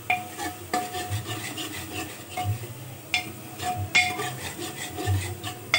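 A spatula stirring and scraping masala frying in an aluminium pressure cooker, with several sharp knocks of the spatula against the pot.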